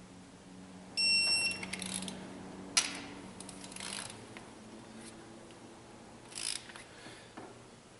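Electronic torque wrench giving one short high beep about a second in, the signal that a cylinder head bolt has reached its set torque. It is followed by a sharp click and lighter metallic clicks of the wrench's ratchet and socket on the head bolts.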